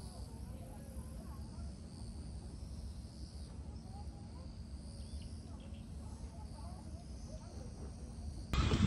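Steady, high-pitched chorus of insects over a low background rumble. Near the end it cuts suddenly to a louder, noisier sound.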